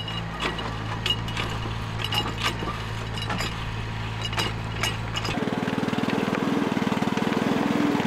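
A mini digger's engine running steadily, with scattered metal clinks and knocks as it works. About five seconds in this gives way to a louder small engine with a rapid pulsing beat: a motorised power barrow carrying shingle.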